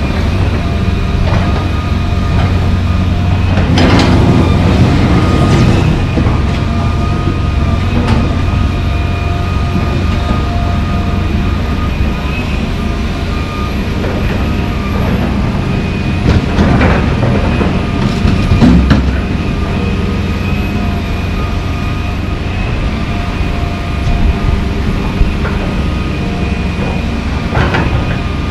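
John Deere 350D LC excavator's diesel engine running steadily under load, with a faint steady whine over it. Chunks of old asphalt crash into the steel bed of a dump truck several times as the bucket is emptied, loudest about four seconds in, again around seventeen to nineteen seconds, and once near the end.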